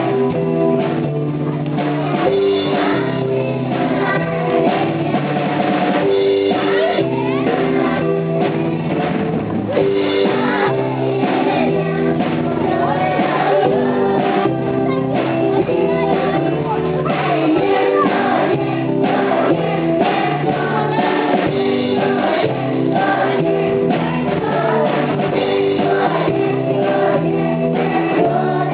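Live praise band of children: drum kit, keyboard and electric guitar playing an upbeat worship song, with a group of young girls singing together.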